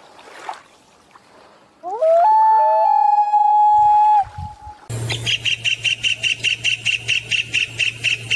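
Bird calls: a long whistled note that begins with rising slides and holds steady for about two seconds, then, after an abrupt change, a rapid even run of chirps, about four a second, over a low steady hum.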